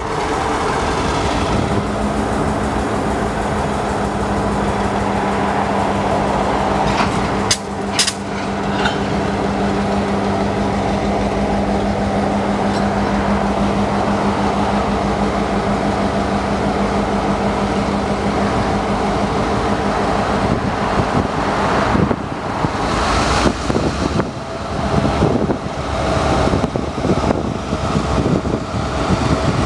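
Diesel freight locomotives running as they roll slowly past close by, engines giving a steady hum, with a couple of sharp metallic clanks about eight seconds in.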